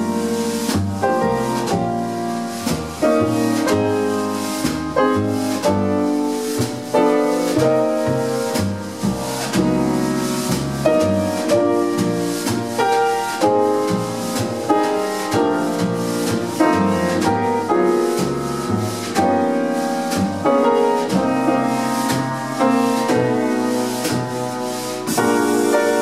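Jazz piano trio playing a standard: grand piano, double bass plucked by hand, and drum kit.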